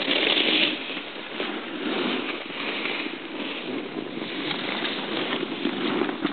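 Snowboards scraping over the snow as several riders slide past one after another, the sound swelling and fading with each pass and loudest about the first second.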